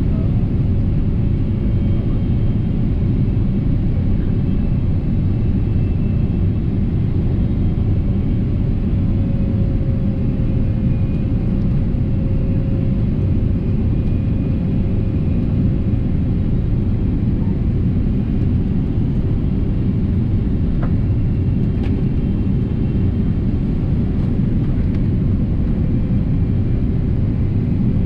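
Airliner cabin noise on the landing approach: a steady low rumble of the jet engines and rushing air, with a faint steady hum above it.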